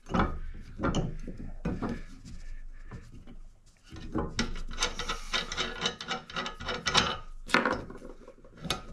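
Hands working the fittings of a Ballard V2 Super Jack mower lift: rubbing, scraping and light clicks as a black knob is taken off the frame to remove a wrongly fitted arm. The handling is busiest from about four seconds in, with a sharper knock about seven and a half seconds in.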